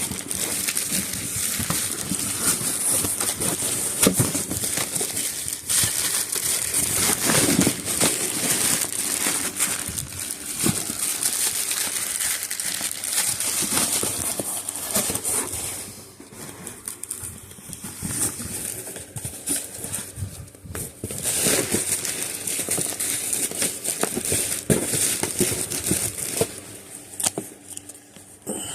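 Packaging crinkling and rustling as it is handled, with many small clicks and knocks; it quietens for a few seconds past the middle, then starts up again.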